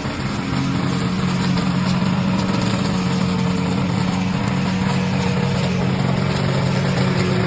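Remote-control lawn mower's engine running at a steady speed.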